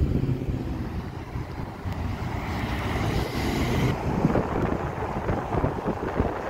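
Everyday road traffic passing, tyres and engines, with wind buffeting the microphone.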